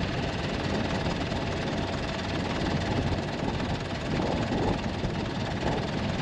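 Steady engine noise from a rollback recovery truck idling close by while it sits stuck in soft sand.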